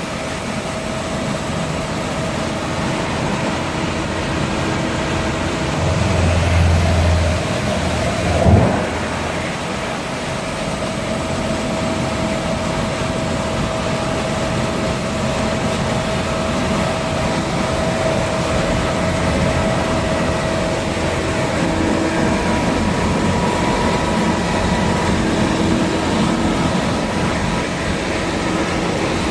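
BX2113 drum wood chipper running and chipping wood, a steady mechanical din with a faint whine in it. A heavier low rumble comes about six seconds in, followed by a single sharp knock about eight and a half seconds in.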